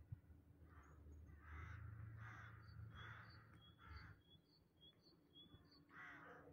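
Faint crow cawing, about six caws with a pause before the last one. A small bird chirps over and over through it.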